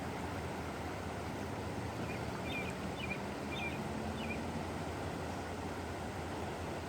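Steady rush of the flood-swollen Winooski River. Near the middle a small bird chirps four times.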